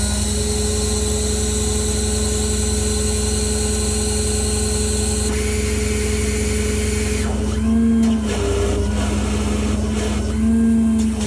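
The truck's hydraulic system, driven off the running Cummins diesel, is whining steadily as the hydraulic outriggers are drawn up. A hiss runs through the first half. Twice the whine rises in pitch and grows louder for a moment: about eight seconds in and near the end.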